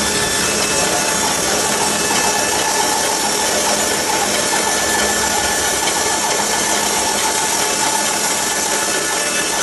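A woodworking power tool running steadily without pause, a dense even whirr with a faint steady hum.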